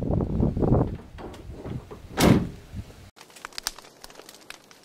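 A single hard slam about two seconds in as the pickup truck is shut, over rumbling wind noise on the microphone; after that only faint light clicks.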